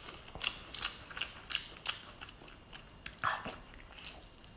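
Close-up mouth sounds of biting and chewing sauce-coated octopus: short wet smacking clicks a few times a second, with a louder wet bite about three seconds in.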